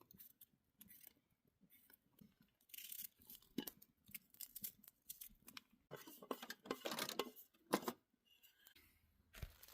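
Knife slicing through a raw potato: a series of faint, short, crisp cuts at irregular intervals.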